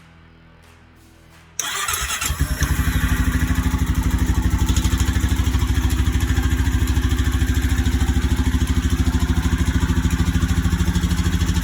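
Honda Rancher 420 ATV's single-cylinder four-stroke engine started up for the first time after the rebuild: a brief crank about a second and a half in, then it catches and settles into a steady, evenly pulsing idle.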